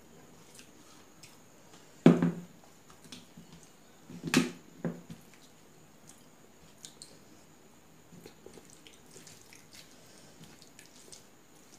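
Close-miked eating sounds: fingers squishing and mixing rice with curry on a steel plate, with small wet clicks and soft chewing. Two louder knocks stand out about two seconds and four seconds in.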